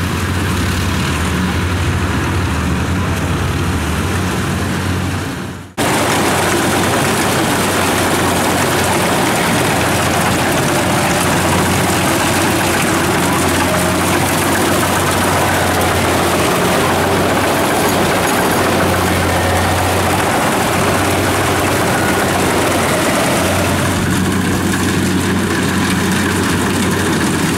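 A small farm tractor's engine hums steadily. About six seconds in the sound breaks off sharply at an edit. It is followed by a Kubota DC70 combine harvester running at work cutting rice: a loud, even mechanical noise of engine and threshing gear over a low engine hum.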